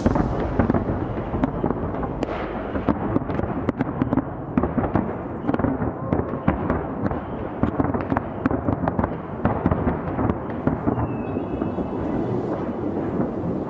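Fireworks display: a dense, continuous barrage of booming bursts with many sharp cracks and crackles over them.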